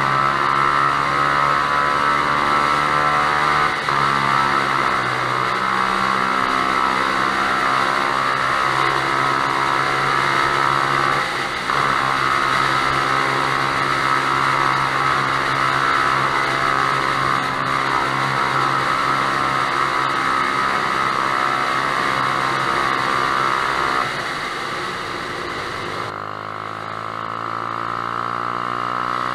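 Yamaha YBR125's single-cylinder four-stroke engine, run through an aftermarket Lextek stubby exhaust, pulling hard inside a tunnel. The note drops briefly about four and about twelve seconds in as it changes up a gear. Near the end, out of the tunnel, the sound turns quieter and thinner as the engine revs climb again.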